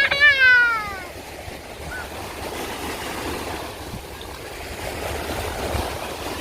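A voice gives a falling exclamation in the first second, then a steady wash of small sea waves on a sand beach, with low wind rumble on the microphone.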